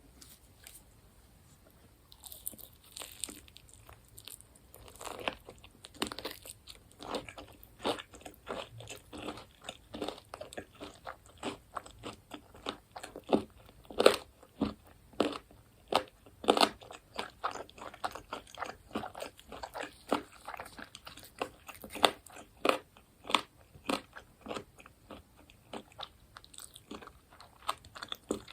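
Close-miked eating sounds: repeated crunching bites and chewing of crispy fried food, starting about two seconds in and going on at about one to two crunches a second.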